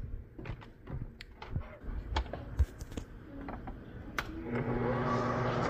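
Clicks and knocks as a stainless-steel bowl is fitted onto a Cooklee stand mixer and its head is lowered. Then, about four and a half seconds in, the mixer's motor starts and runs steadily, beating the cake batter.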